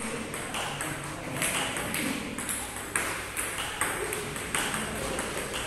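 Table tennis balls clicking off rubber paddles and bouncing on the tabletop in a quick, even rhythm: a multiball drill, with one ball after another fed and returned.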